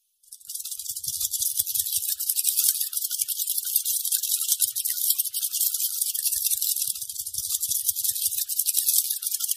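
Night insects, likely crickets, chirping in a dense, rapid, high-pitched trill that does not let up, with a few faint low thuds in between.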